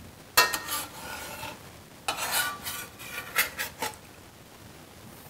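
Metal spatula scraping across the bottom of a stainless steel skillet, sliding under cooked burger patties. One long scrape about half a second in, then after a short pause another scrape and a few quick shorter strokes.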